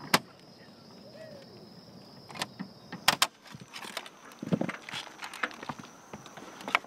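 Sharp metallic clicks and clatter of fasteners being driven into aluminium roof frame pieces, with a loud double snap about three seconds in and a run of smaller clicks and a knock after it. A faint steady high whine lies underneath.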